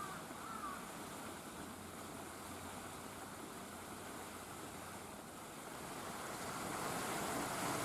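Steady outdoor background hiss with no clear single source, growing louder near the end; a short faint chirp sounds about half a second in.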